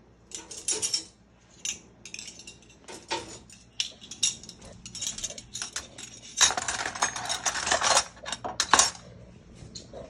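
Metal cutlery clinking and clattering as it is lifted out of a dishwasher's cutlery basket and dropped into a kitchen drawer. The clinks come in short clusters, with a longer run of jangling about two-thirds of the way through.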